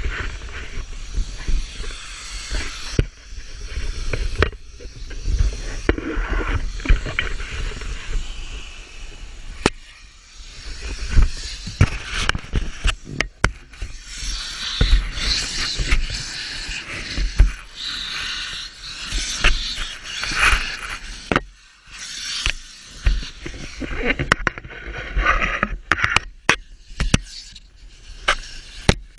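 Handling noise from a camera in a waterproof case: rubbing, scraping and knocking against the case as it is moved about, with low rumbling and many sharp clicks.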